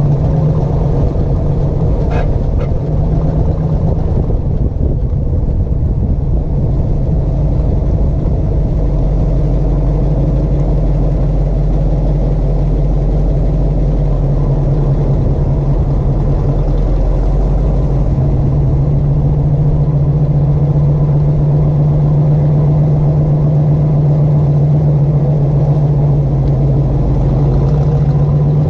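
1958 Corvette's 283 V8 running steadily while the car is driven slowly in tight circles. For most of this stretch the car is circling to the right, where the owner hears none of the right-rear wheel grinding that comes on in tight left turns.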